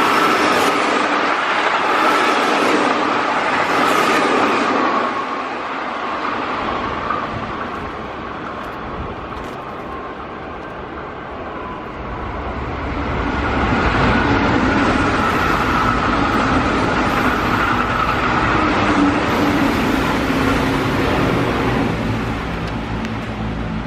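Keihan Railway trains running through the station, a loud rumble of wheels on rail with a steady whine over it. It eases off about five seconds in and builds again from about twelve seconds in as another train comes through.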